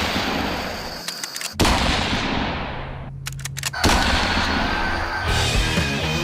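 Three loud, sudden crash hits, each dying away over a second or so, then rock music with a steady beat picks up again about four seconds in.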